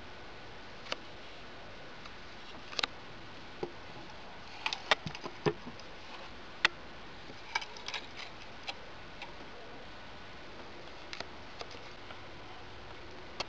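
Irregular sharp clicks and light wooden knocks from a walnut box being handled, its latch hardware worked and its lid lifted open, over a faint steady hiss.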